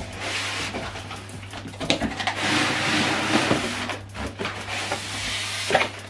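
Polystyrene foam packing and cardboard scraping and rustling as a packed soundbar is slid out of its box, loudest in the middle, with a couple of knocks.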